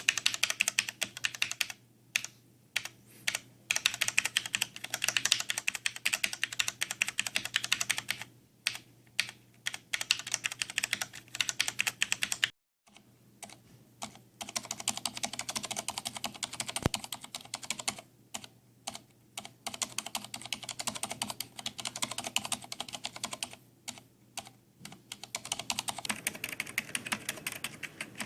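Typing on an i-Rocks mechanical keyboard: fast runs of keystrokes with short pauses between them. About twelve seconds in, the typing stops for a moment, then resumes with quieter keystrokes.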